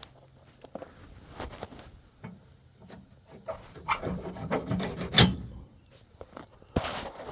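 Irregular scraping, rubbing and clicks of small metal parts being worked by hand, loudest about four to five seconds in, with another short scrape near the end.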